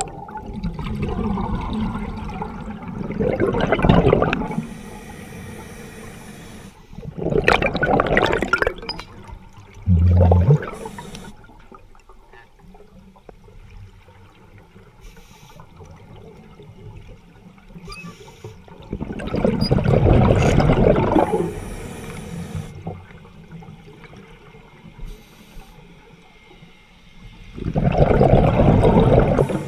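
Scuba diver's exhaled bubbles from the regulator, heard underwater: four loud gurgling bursts several seconds apart, each lasting one to three seconds, with quieter water noise between them. A short low hum sounds a little after ten seconds in.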